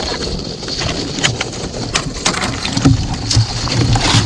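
Sea kayak pushing through thin skim ice: scattered sharp cracks and crackles as the ice breaks against the hull and paddle. A heavier low rumble joins about three seconds in.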